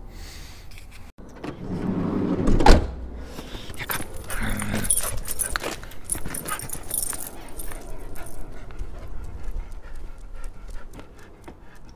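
A dog outdoors: one loud bark about two and a half seconds in, then the jingle of the tags on its harness as it moves about.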